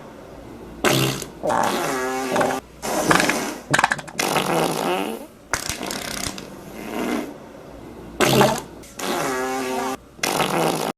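A string of fart sound effects: about nine sputtering blasts, each half a second to two seconds long, separated by short gaps. Most have a buzzing, wavering pitch, and a quick run of crackling pops comes about halfway through.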